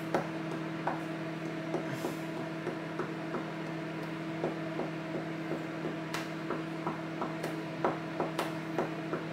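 Microwave oven running with a steady electrical hum, with small irregular clicks and ticks over it.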